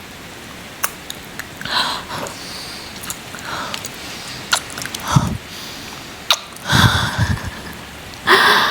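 Close-up ASMR kissing and mouth sounds: wet lip smacks and sharp clicks with breathy puffs of breath, loudest near the end, over a steady rain hiss.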